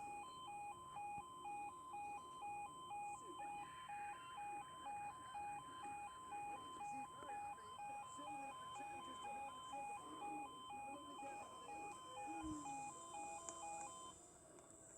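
Level crossing warning alarms: two pulsing tones at slightly different pitches, beeping about twice a second, then cutting off shortly before the end.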